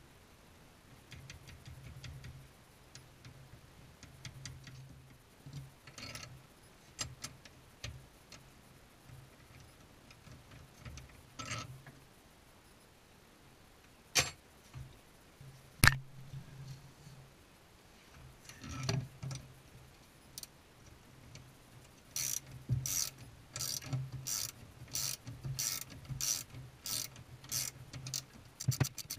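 Ratchet wrench tightening the gas tank strap bolt: scattered metal clicks and two sharp knocks midway, then an even ratcheting of about two clicks a second over the last quarter as the strap is drawn up.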